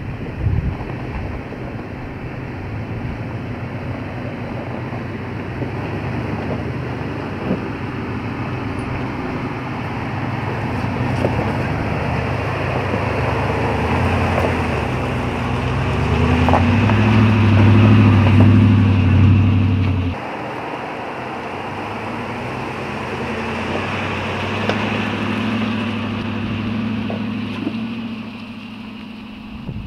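Ford Raptor pickup driving on a backcountry road: its engine runs under varying throttle over steady tyre and road noise. The engine grows to its loudest past the middle, drops off suddenly about twenty seconds in, then picks up again.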